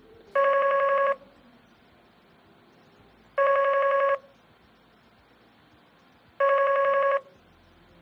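Matrix EON48P desk phone ringing for an incoming call: three short electronic rings of a steady tone, each under a second long, about three seconds apart.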